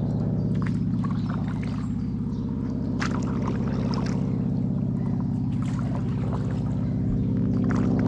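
Water dripping and splashing from paddle strokes, a short trickle every second or so, over a steady low hum that is the loudest thing heard.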